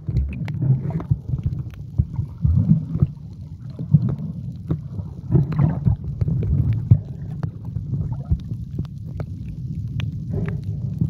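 Muffled underwater sound picked up by a camera held underwater: a low rumble of moving water with swells in loudness and many scattered clicks and crackles.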